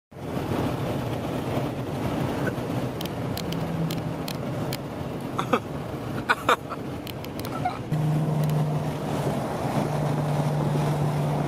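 Road, tyre and wind noise inside a car cabin at highway speed, a steady rush with a low engine drone underneath that becomes louder about eight seconds in. A few short clicks sound near the middle.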